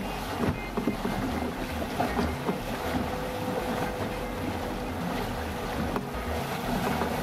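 Water rushing and splashing along the hull of an Argie 15 plywood sailing dinghy moving fast in a fresh breeze, with wind buffeting the microphone.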